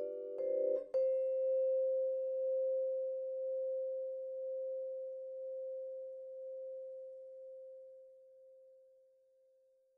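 Vibraphone: a ringing chord is cut off and a single final note is struck about a second in. The note rings on alone and fades slowly away over about nine seconds, ending the ballad.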